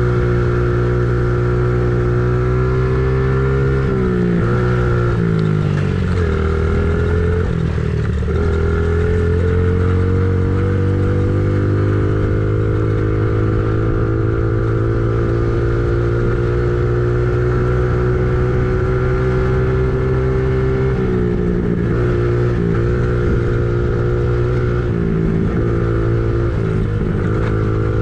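An engine running steadily under varying load, its pitch dipping and recovering several times between about four and eight seconds in and again from about twenty-one seconds on.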